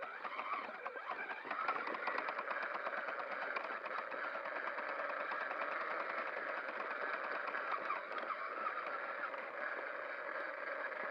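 Traxxas Summit RC truck's electric motor and geared drivetrain whining as it drives, the pitch wavering with throttle, over a continual fine rattle.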